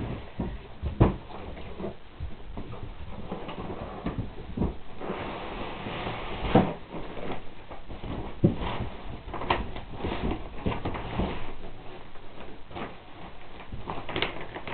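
Cardboard box being handled: irregular knocks and clicks, with stretches of rustling and scraping.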